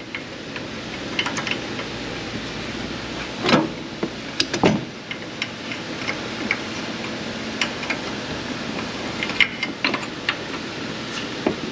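Scattered light metallic clicks and taps of hand work on a front suspension: shim aligner tabs and nuts being fitted onto mounting studs. A few louder knocks come about three and a half, four and a half and nine and a half seconds in, over steady background noise.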